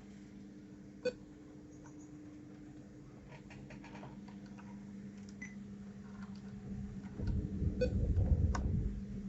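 Small plastic clicks of keycaps being handled on a mechanical keyboard, with one sharp click about a second in and a louder rubbing handling noise with clicks near the end, over a steady low hum.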